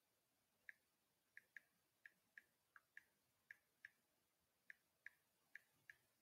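About a dozen faint, sharp clicks at irregular intervals over near silence.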